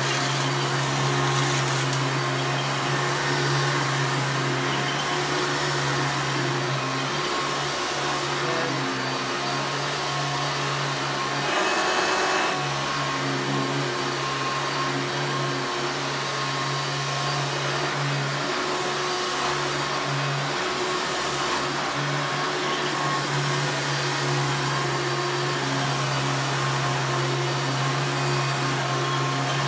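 A 1996 Hoover Runabout upright vacuum cleaner running steadily, its motor giving a constant hum with an airy rush over it. Not too loud, with a brief swell about twelve seconds in.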